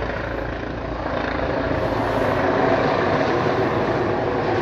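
Police helicopter flying low overhead, its rotor and engine noise steady, growing a little louder after the first second or so.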